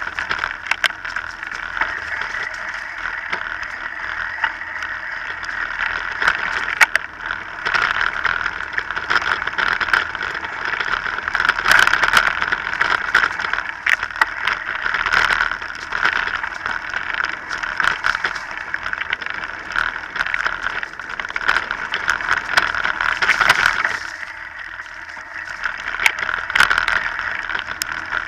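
Mountain bike rolling fast over a dirt trail strewn with dry leaves: a steady rushing noise with many sharp clicks and rattles from the bike over rough ground. It eases briefly near the end.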